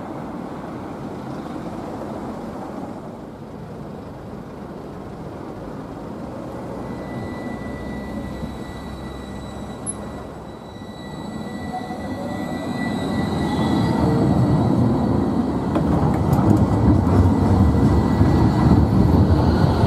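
Karlsruhe GT6-70D/N low-floor tram approaching and passing close by. After a few seconds of low street background, a rumble of wheels and running gear swells from about twelve seconds in, with a steady high electric whine over it, and is loudest in the last few seconds.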